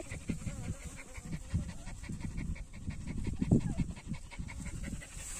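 Wind buffeting the microphone in uneven low rumbles, with a faint fast pulsing, about five a second, under it for the first couple of seconds.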